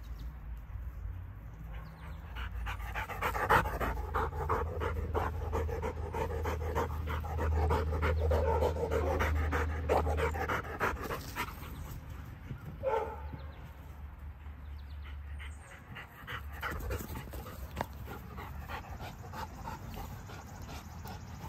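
German shorthaired pointer panting hard and fast, close to the microphone, out of breath from running after a ball; the panting is loudest in the middle stretch.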